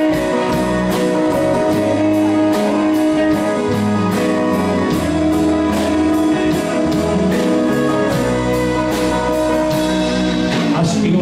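A band playing guitar-led music over a steady drum beat, with a bass line underneath.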